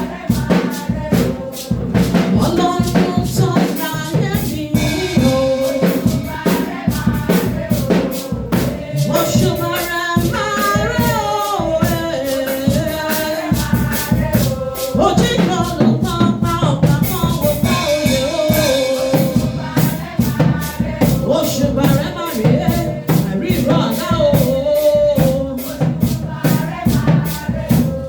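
Worship song: a voice singing a melody over a steady beat of drums and shakers.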